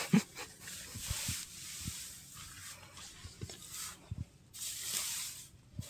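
Dry straw bedding rustling and crackling as hands dig through it in a duck pen searching for eggs, in two main bursts with soft thumps between, and a short low pitched sound at the very start.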